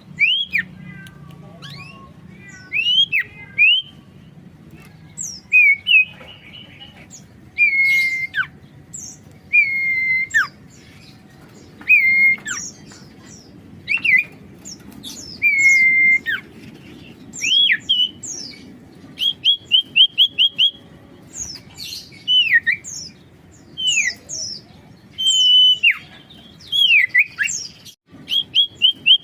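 Common iora (sirtu, cipoh) singing actively: clear whistled notes repeated every second or two, many sliding down in pitch. About twenty seconds in, and again near the end, comes a quick run of short repeated notes. A faint low steady hum sits underneath.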